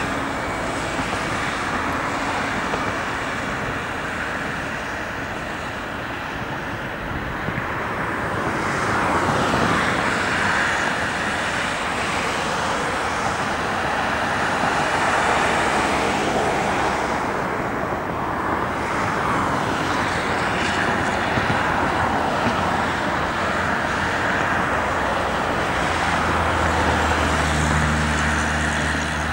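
Steady rush of road traffic that swells and eases a few times. A low, steady hum joins near the end.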